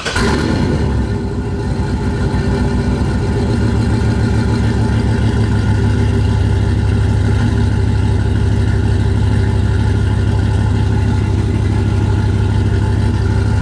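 GM 5.3-litre V8 pickup engine just started and idling steadily, running rough with a misfire: one cylinder is not firing (P0300 misfire code).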